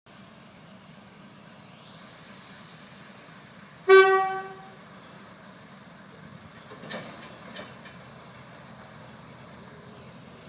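Diesel railcar running with a steady low rumble, giving one short horn toot about four seconds in, followed by a few metallic clanks as it moves off.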